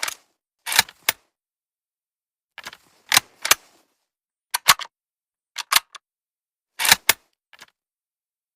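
Mosin–Nagant bolt-action rifle being worked by hand: sharp metallic clicks and clacks in small groups of two or three, spread over several seconds.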